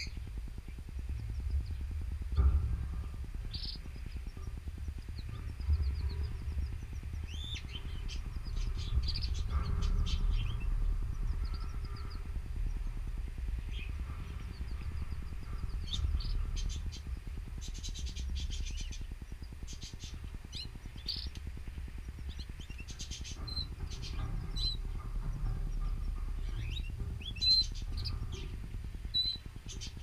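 Canaries chirping and calling in short, scattered notes and brief trills, with a few clear single tones near the end, over a steady low rumble. A few brief knocks stand out, about two and six seconds in and near the end.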